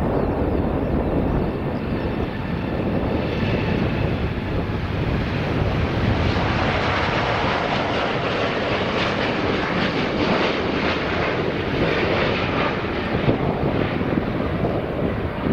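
Boeing jet airliner's engines, a steady rush of jet noise that grows fuller and brighter a few seconds in.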